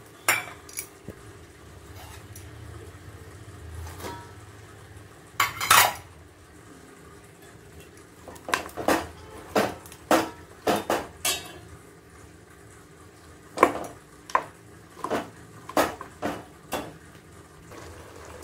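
Metal spoon scraping and clinking against a metal cooking pot as raw mutton, onion and spices are stirred together. The strokes come in irregular runs, with the loudest clink about five and a half seconds in.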